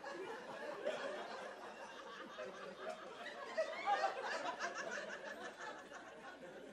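Audience laughing, swelling about four seconds in and then dying down.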